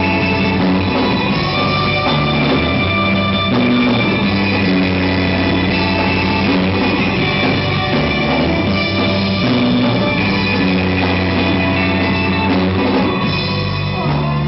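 A rock band playing live: electric guitars and a drum kit in a loud, steady instrumental passage with no singing.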